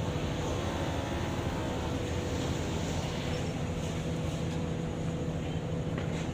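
Engine or machine running steadily with a low hum, a faint steady tone above it, and a few light clicks.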